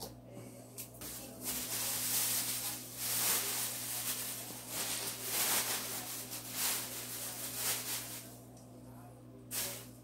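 Clear plastic packaging bag crinkling and rustling as it is handled, in irregular bursts, with one short louder rustle near the end.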